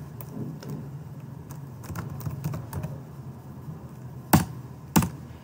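Typing on a computer keyboard: scattered keystrokes, with two louder clicks near the end.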